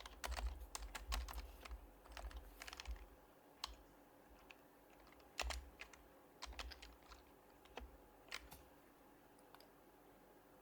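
Typing on an HHKB Professional Hybrid Type-S keyboard with its silenced Topre switches: quiet key presses in irregular bursts, dense for the first few seconds, then scattered strokes and short runs with pauses between.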